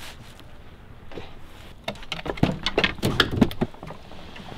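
Irregular knocks and footsteps on wood as a person in boots steps down into a small wooden rowboat, a quick cluster of sharp knocks about two seconds in.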